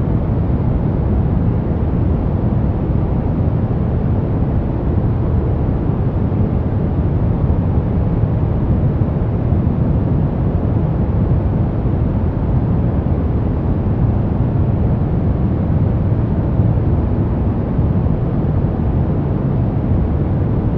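Steady relaxation noise track, unchanging throughout, deep and weighted toward the low end rather than evenly hissy.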